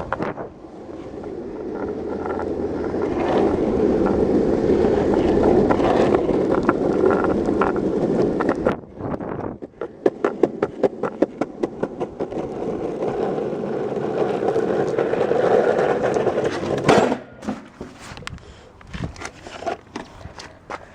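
Longboard wheels rolling over pavement, a steady rumble that builds over the first few seconds. About halfway through comes a quick run of sharp clicks, then more rolling, and a single loud knock a few seconds before the end, after which it goes quieter.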